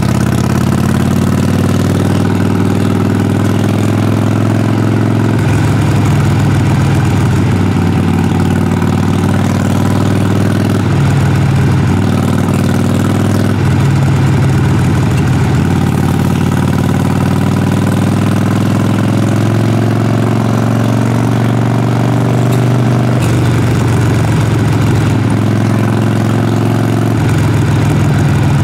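Harley-Davidson Sportster Forty-Eight's air-cooled V-twin exhaust running under way at low to moderate revs. Its note changes pitch several times as the throttle is rolled on and off or gears are changed.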